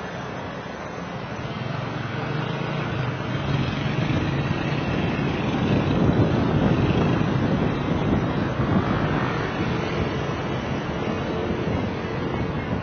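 A car driving: engine and road noise with wind buffeting the microphone, growing louder over the first few seconds.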